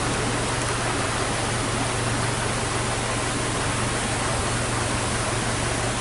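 Waterfall cascading over rock: a steady, even rush of falling water.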